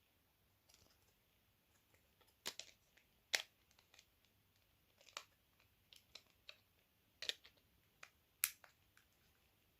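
Faint, irregular clicks and taps from a Nokia 8210 mobile phone being handled, about a dozen in all, the sharpest about three and a half seconds in and near the end.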